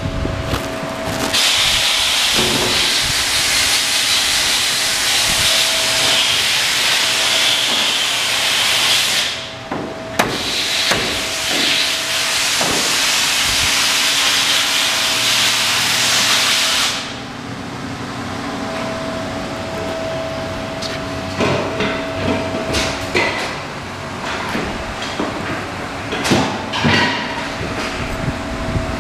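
Workshop background: a loud, steady hiss runs for about eight seconds, breaks off briefly, then runs about seven seconds more before stopping. Scattered knocks and clanks sound throughout, over a faint steady hum.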